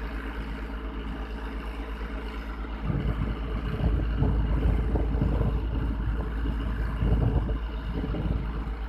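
Diesel engine of a mobile crane running steadily with a low hum, swelling into a louder, rougher low rumble from about three seconds in until near the end.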